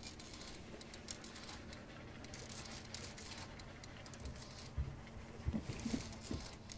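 Faint quiet ambience with scattered light ticks and a few soft, short low knocks, the clearest between about five and six and a half seconds in.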